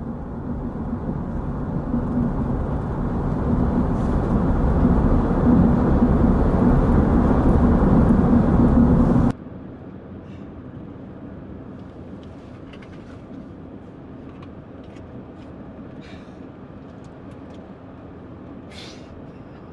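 Engine and road noise inside a moving car's cabin. It is a low, steady rumble that grows louder over the first nine seconds, then cuts suddenly to a much quieter steady hum with a few faint clicks.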